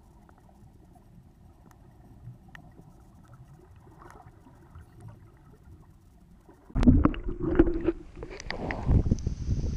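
Muffled low water noise heard through an underwater camera housing. About seven seconds in it cuts abruptly to a much louder, rough noise with a brief hum.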